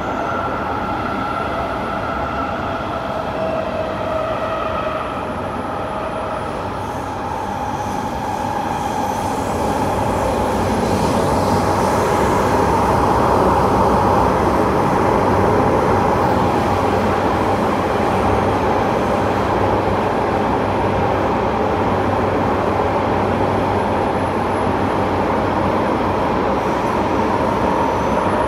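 Inside a Kawasaki C751B metro train running through an underground tunnel. Faint whining tones from the traction motors come through in the first several seconds, then the steady rumble of wheels on rail grows louder from about eight seconds in and holds.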